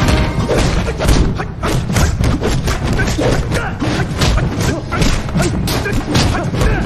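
Rapid flurry of film fight sound effects: punch and kick impacts landing several a second.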